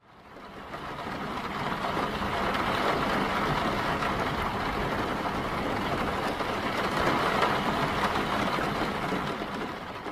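Steady rain pattering, fading in at the start and out at the end.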